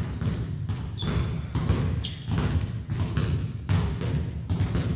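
Basketball being dribbled on a hardwood gym floor, sharp bounces about twice a second, with a few short high sneaker squeaks.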